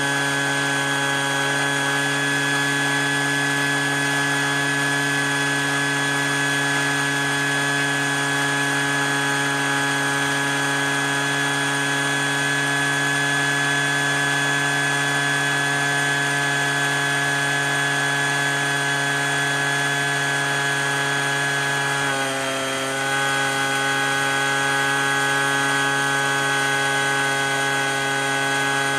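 Leaf blower and four shop vacs running together steadily, pulling suction through a corrugated hose into a metal drum. About 22 seconds in the pitch and loudness dip briefly, then recover.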